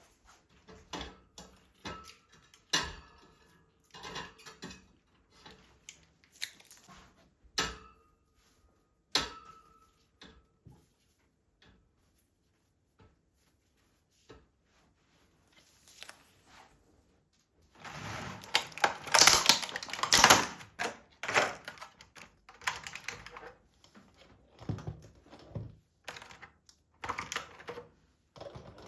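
Small household objects being handled: a run of light taps, clicks and knocks, two of them leaving a short ringing clink, then a louder, busier stretch of clatter and rustle about two-thirds of the way through.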